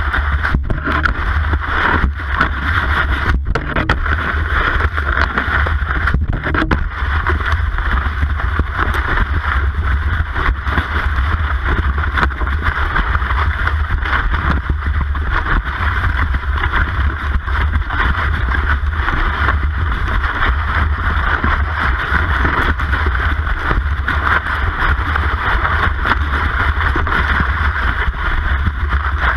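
Cross-country ski gliding in a groomed classic track, heard through a camera mounted on the ski: a steady, loud hiss and rumble of the ski sliding on the snow, with wind on the microphone. A few sharp knocks come in the first several seconds.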